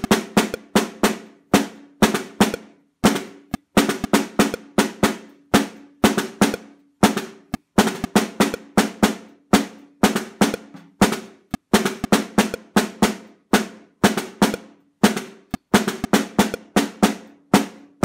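Snare drum played with wooden sticks at 120 BPM: a two-bar pattern repeating about every four seconds. It has main backbeat hits on beats 2 and 4, with quick anticipation strokes before them and bounces after them.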